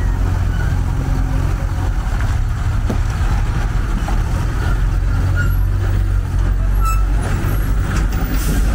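Heavy Tata tipper truck's diesel engine running as the tractor-trailer drives slowly past at close range, with a short hiss near the end.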